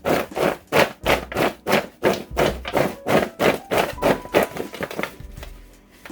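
Background music with a steady low bass, under a loud rhythmic shaking or rustling about three times a second that stops about five seconds in.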